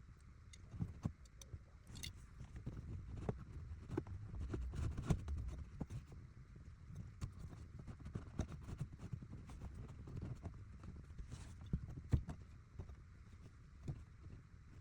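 Irregular clicks and knocks of plastic interior trim panels being handled and pried off in a car cabin, with a few louder knocks near the middle and end.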